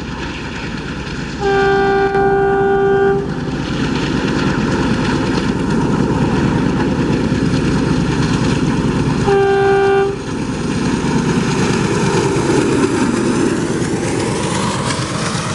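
Indian Railways diesel locomotive sounding its single-note horn twice, a blast of nearly two seconds about a second and a half in and a shorter one about nine seconds in, over the steady rumble of the locomotive and its passenger coaches running past.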